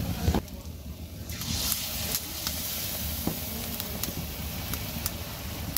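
Batter-coated pumpkin flowers sizzling as they deep-fry in hot oil in a blackened iron karai, a steady hiss with scattered pops and crackles.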